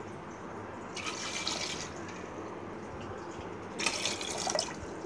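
Water poured from a cup into an aluminium pot, in two short splashy pours: one about a second in and one near the end. This is the water going in on top of the sugar to make syrup.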